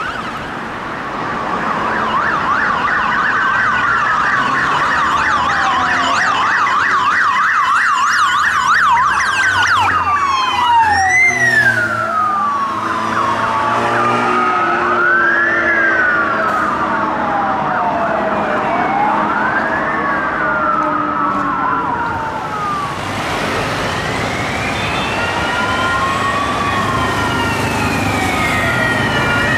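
Emergency-vehicle sirens on the move: a fast yelp for the first several seconds, then slow rising-and-falling wails from police motorcycles, and in the last third several sirens sweeping at once.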